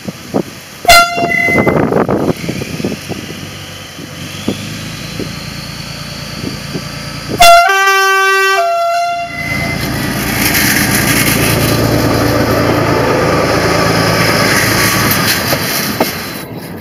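SNCF X 2200-series diesel railcar sounding its two-tone horn for departure: a short blast about a second in and a longer one of about a second and a half at 7.5 s. Its diesel engine then runs up as the railcar pulls away, with the run loud and close from about 10 s and easing off near the end.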